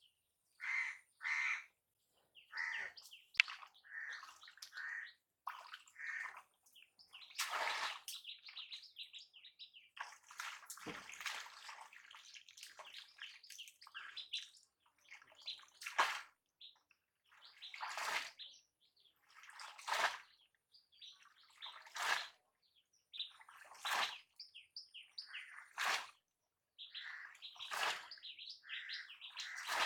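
Birds chirping, and through the second half a bamboo polo fish trap slapping down into shallow floodwater with a splash about every two seconds.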